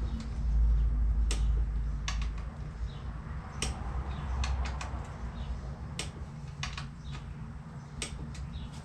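Scattered sharp clicks from a wrench on the triple clamp pinch bolts of a Honda CR250 as they are torqued, with a low rumble under the first few seconds.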